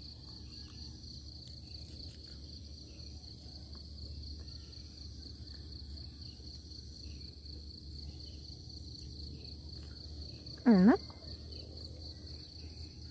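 Steady, pulsing chirring of insects in a garden, high-pitched, over a low outdoor rumble. About eleven seconds in, a person gives one short hummed 'mm' that dips and then rises in pitch.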